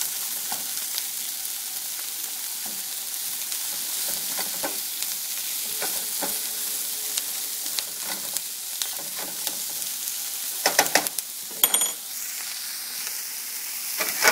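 Diced chicken, onion and orange pepper sizzling in oil in a frying pan on high heat, stirred and scraped with a silicone spatula. A few louder, sharp knocks come about 11 seconds in.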